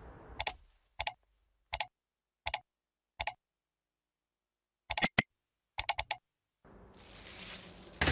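Footsteps of hard shoes on a hard floor: five crisp, evenly paced steps, then a few quicker steps about five and six seconds in. A faint hiss rises near the end.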